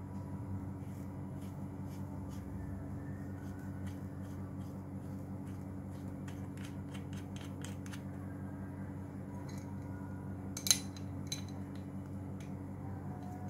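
Small metallic clicks and ticks of a pressure-washer hose fitting being handled and screwed onto a quick-release coupler, with one louder click near the end. A steady low hum runs underneath.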